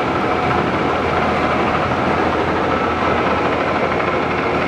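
Monarch Model 613 heavy-duty toolroom lathe running under power, its geared headstock and large 4-jaw chuck turning with a steady mechanical whirr.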